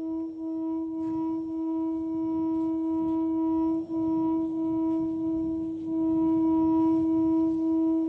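A single held drone note with overtones, over a low rumbling noise, in experimental noise music. It swells slowly and dips briefly about halfway through.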